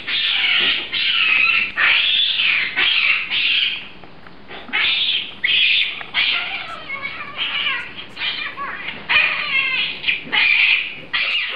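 Baboon screaming, a long run of shrill rising-and-falling calls about two a second, with a short lull about four seconds in; a baboon that has just been cornered.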